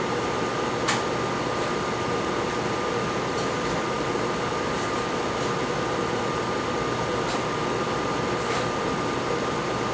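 Steady whirring hum and hiss of a fan or air-conditioning unit with a thin constant whine, and a light click about a second in.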